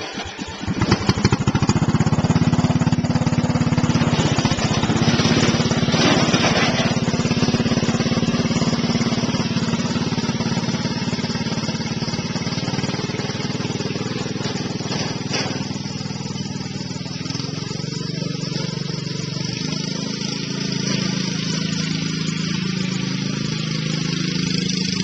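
Riding lawn mower's 14 hp engine running loud, its pitch shifting a little as it works.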